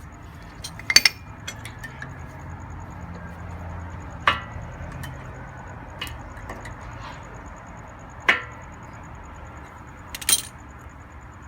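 Sharp metallic clinks and knocks as brake pads are set into a car's disc brake caliper: a quick pair about a second in, single knocks around four and eight seconds in, and another pair near the end.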